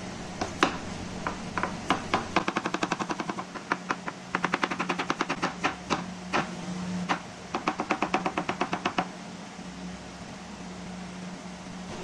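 Kitchen knife rapidly slicing a potato on a cutting board: quick runs of sharp chops, several a second, in bursts with short pauses, stopping about nine seconds in.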